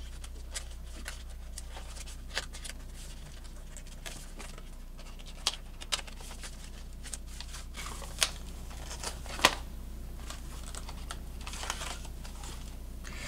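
Handling and opening a small cardboard product box: scattered light clicks and taps with faint crinkling of packaging.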